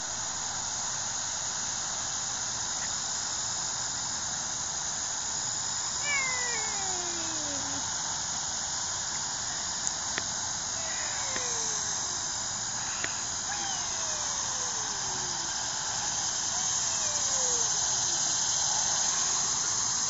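Playground swing's chain hangers squeaking as it swings: a drawn-out squeal falling in pitch, about once every three seconds, over a steady high hiss.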